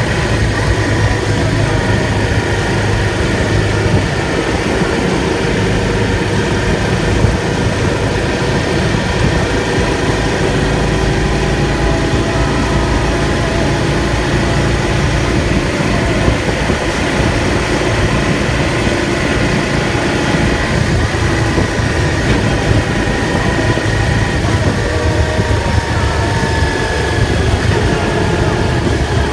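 Motorcycle engine running steadily under way, with a heavy low rumble and a few faint tones that drift slowly in pitch.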